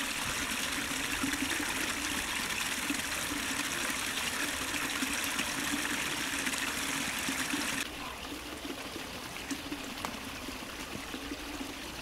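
Steady running water of a small stream, an even rushing trickle. About eight seconds in it abruptly turns a little quieter and duller.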